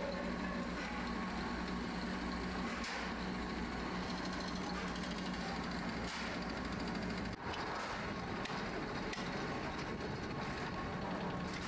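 Steady electric-motor hum of metalworking shop machinery, with a few faint metallic clicks. A deep low rumble underneath stops abruptly about seven seconds in, leaving the hum.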